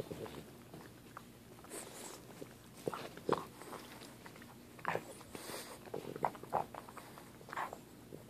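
Boston terrier chewing a pig ear: irregular crunching and gnawing, with a few louder crunches scattered through.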